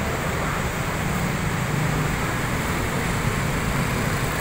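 Steady road traffic, with motorcycles and a van driving past: a continuous mix of engine and tyre noise.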